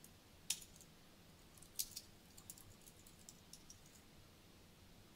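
Faint computer keyboard typing: scattered single keystrokes, with a couple of sharper taps about half a second in and near two seconds.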